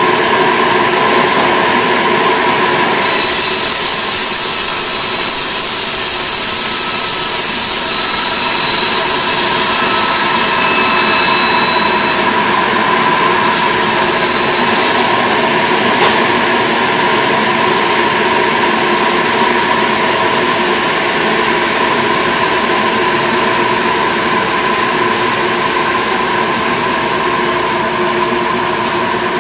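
Large circular saw on a log mill line, its blade trimming a squared log as it rides a powered roller conveyor. A bright, high cutting hiss comes in about three seconds in and eases off around twelve seconds, over the steady hum of the mill machinery.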